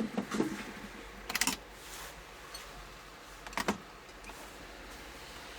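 Scattered light clicks and knocks from hands handling tools and a circuit board on a workbench: a few at the start, a quick group about a second and a half in, and a close pair near the middle, over a faint steady hum.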